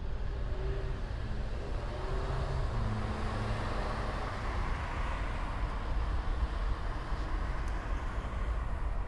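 Steady rumble of distant road traffic, with a few faint engine tones drifting in and out.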